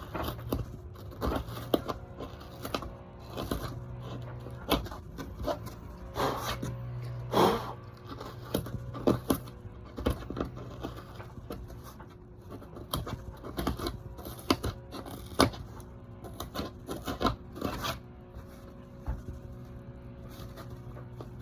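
A sharp pointed tool scraping and prying at the foam and wooden stringer inside a drilled leash-plug hole in a surfboard, in many irregular short scrapes and clicks, over a steady low hum.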